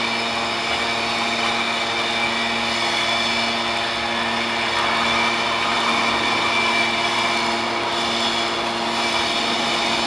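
Hydraulic power unit of a 200-tonne scrap metal baler running steadily: a 37 kW electric motor and pump hum with a steady whine while the hydraulic cylinder moves the lid. The hiss swells a little about halfway through.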